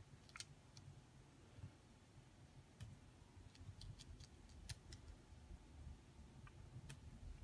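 Near silence broken by faint, scattered ticks and clicks of small hands-on crafting: tiny adhesive foam pads being peeled from their backing sheet and pressed onto a thin strip of cardstock.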